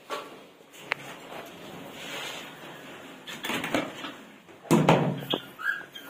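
Clatter and rustling as a feed cup is handled against a wire-mesh bird cage: a sharp click about a second in, then knocking that is loudest a little before the end. A bird chirps once, briefly, near the end.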